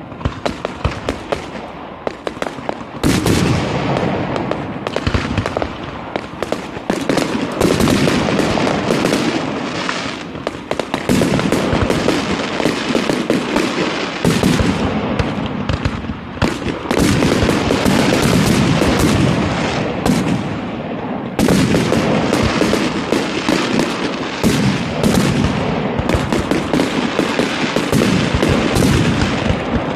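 Fireworks grand finale: a dense, continuous barrage of rapid bangs and crackling shell bursts, swelling louder about three seconds in and again around eleven and twenty-one seconds.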